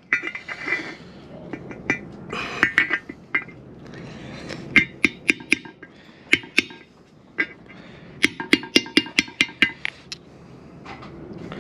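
A hammer taps a steel socket used as a driver to press a new oil seal into an aluminium transmission cover. The sharp metallic taps come in irregular groups, with a quick run of them about eight seconds in. The seal is a tight fit and resists going in.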